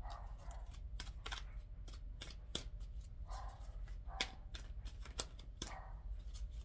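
A deck of tarot cards being shuffled by hand: irregular sharp snaps and flicks of the cards, several a second, with short soft rustles in between.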